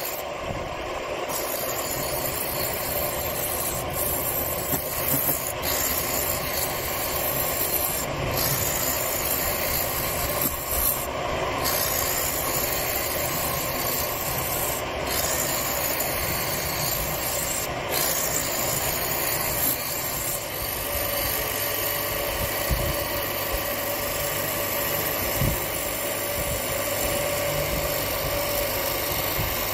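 Wood lathe running while a turning tool cuts into a spinning wood blank: a steady scraping hiss as shavings peel off, with the lathe's motor hum underneath.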